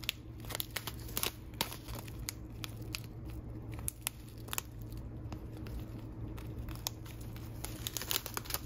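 Thin clear plastic pouch of loose-leaf tea crinkling and crackling as fingers handle and turn it, in irregular sharp crackles over a low steady hum.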